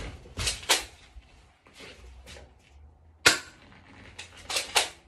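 Shotgun-style BB gun firing once with a sharp crack a little over three seconds in. Pairs of fainter clacks come before and after the shot, as the gun is cocked between shots.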